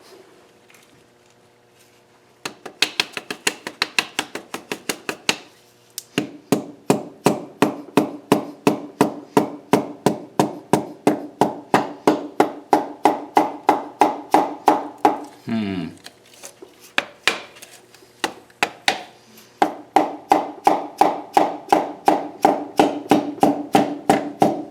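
A piston being tapped down through a ring compressor into the cylinder bore with a hammer, in quick even taps about three a second that each ring briefly. The tapping starts a few seconds in and pauses twice.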